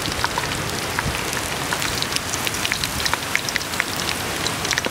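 Pieces of pork deep-frying in hot oil in a metal pot: a steady sizzle with many sharp crackles and pops.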